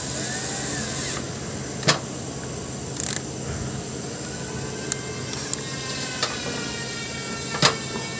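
About half a dozen short, sharp clicks and taps as tools and fingers work the screw terminals and metal enclosure of a planer's magnetic contactor, over a steady background hum.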